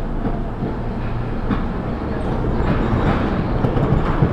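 MS61 electric multiple unit on RER line A running along the track: a steady low rumble with a few sharp clicks from the wheels on the rails.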